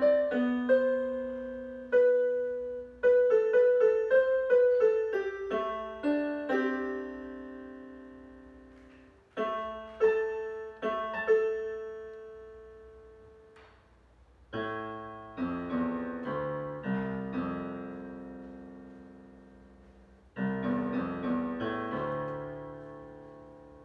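Solo piano playing slowly: a melody of single notes and light chords, then fuller chords with low bass notes from a little past halfway, each left to ring and fade away.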